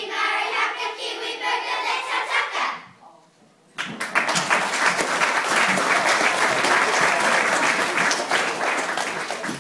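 A class of children singing together, their song ending about three seconds in. After a short pause an audience of schoolchildren applauds, steady clapping that fades slightly near the end.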